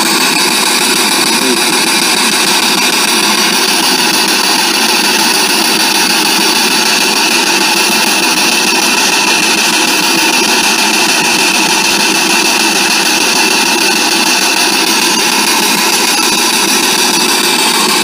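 Handheld spirit box (ITC Research Device) sweeping the radio band, played through a round external speaker: a loud, steady rush of radio static with no clear words. It switches on about a second before and cuts off about a second after.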